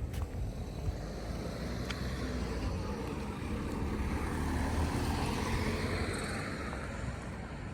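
A vehicle passing by: a rush of noise that swells, is loudest about five seconds in with a falling pitch, then fades, over a steady low rumble.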